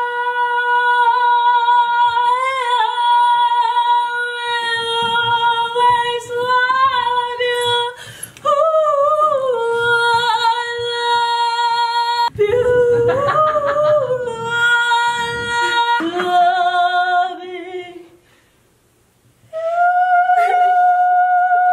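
A woman's voice holding loud, long, high-pitched cries, each sustained for several seconds at a nearly steady pitch, with the voice strained. The pitch wavers and drops in places, and the cries stop for a moment near the end before one more starts.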